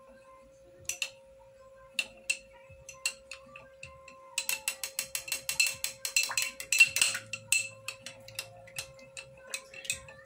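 A metal spoon whisking salad dressing in a small drinking glass, clinking against the glass with a light ring. A few scattered clinks at first, then a quick run of fast clinks for about three seconds from around four seconds in, easing back to slower clinks near the end.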